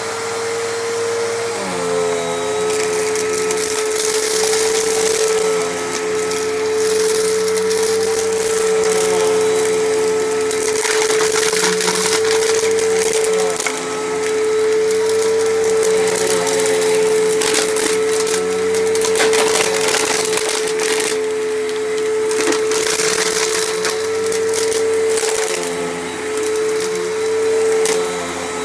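Bissell PowerForce Helix Turbo upright vacuum cleaner running steadily on carpet, its motor pitch dipping slightly about two seconds in. Irregular crackling is heard as grit and debris from the dirty carpet are sucked up.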